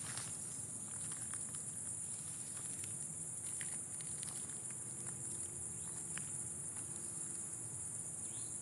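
A steady, high-pitched chorus of night insects, with scattered light footsteps crunching through undergrowth.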